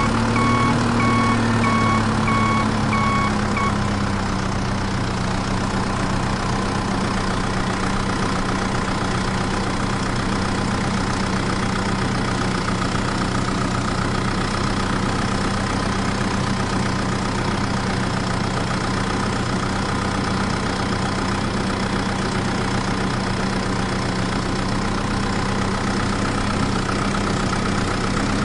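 A vehicle engine idling steadily, with a beeping reversing alarm over it for the first few seconds that stops about four seconds in; as the beeping ends, the engine's pitch settles slightly lower.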